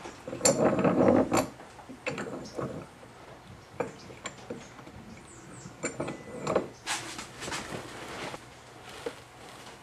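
Metal handling clatter at a bench vise holding a quarter-inch threaded steel rod: scattered clicks, knocks and scrapes as the vise is worked and the rod is clamped and bent by hand, loudest near the start.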